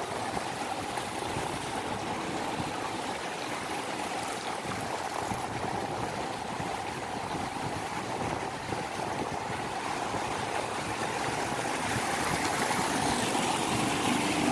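Fast-flowing river water rushing through a concrete tidal sluice gate: a steady rushing noise that grows a little louder near the end.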